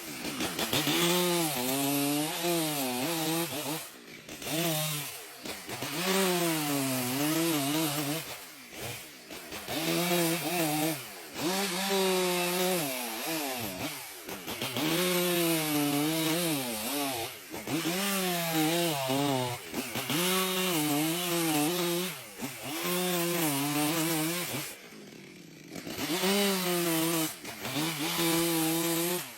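Chainsaw cutting into wood: the engine's pitch sags and rises as the chain bites under load, in repeated cuts of a few seconds each, with brief drops between them and a longer lull near the end.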